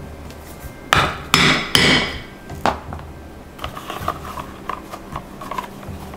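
Hammer striking a metal rivet setter three times in quick succession, setting a rivet through damp leather armor pieces on a steel anvil, each blow ringing briefly. A lighter tap follows, then soft clicks and rustling as the riveted leather pieces are handled.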